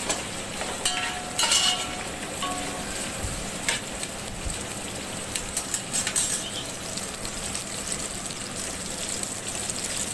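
Sliced onions, green chillies and whole spices being mixed by hand with oil in a steel pot. A few short clinks and scrapes against the pot's side stand out over a steady hiss.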